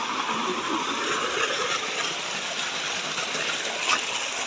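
Steady rushing of a small mountain stream tumbling over rocks, with a single sharp knock near the end.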